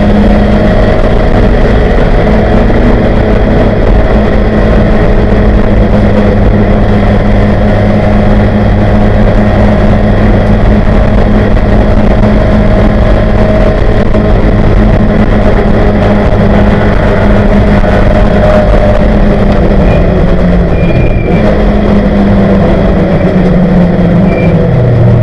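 1971 Ford Capri 2.0-litre race car's engine running hard at high revs, loud and steady, heard from inside the cockpit. Near the end the engine note drops as the car slows from about 108 mph.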